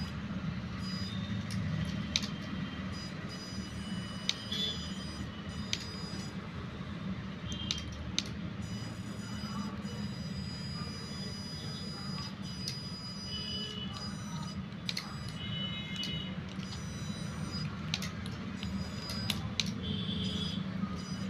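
The small electric drive motor and plastic gears of a toy RC car whirring as it drives, with short high whines that come and go and scattered sharp clicks.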